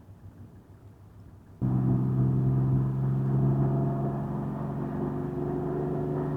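1991 Mercedes-Benz 350 SDL's 3.5-litre six-cylinder turbo-diesel, heard from inside the cabin, with a straight pipe and no muffler. Quiet at first; about one and a half seconds in it jumps sharply louder and holds a steady drone at full throttle, its pitch hardly rising. This is a sign of the car barely gaining speed, which the driver takes for a turbo giving little or no boost.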